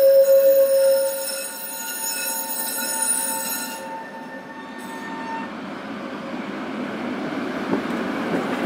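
Steel wheels of an articulated Tatra tram squealing as it rounds a tight curve, a loud ringing squeal of several steady tones that fades out about four to five seconds in. It gives way to the rumble of the tram rolling past, growing louder toward the end.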